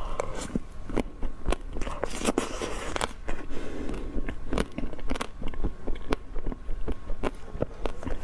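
Close-miked eating: bites and chewing with sharp, irregular crunchy clicks, and a denser crackling stretch of crunching a couple of seconds in.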